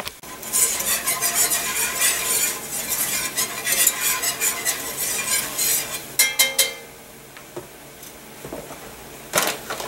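Metal wire whisk scraping rhythmically around an enamelled pan as it stirs a bubbling butter-and-flour roux, with the roux sizzling underneath. Around six seconds in, a few sharp metallic taps of the whisk on the pan, then the whisking stops and only a soft sizzle remains.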